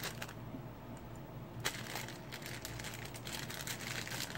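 A small clear plastic packet crinkling as fingers handle and open it to take out a new TDA2030A amplifier IC. The crinkling stops for about a second shortly after the start, then goes on.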